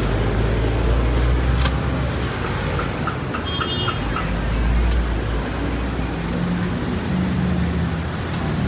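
Street traffic: vehicle engines running with a steady low rumble, and a brief run of faint high chirps about three and a half seconds in.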